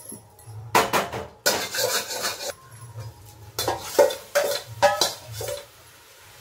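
Stainless-steel lid and cooking pot clinking and clanking as the lid is handled and lifted off, with several sharp metallic knocks that ring briefly and a scraping stretch in between.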